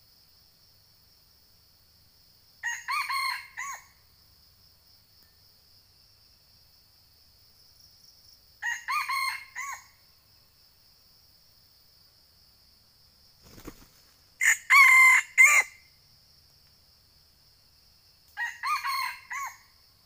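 Red junglefowl rooster crowing four times, each a short, clipped crow of about a second, several seconds apart, the third the loudest. A steady high insect drone runs underneath.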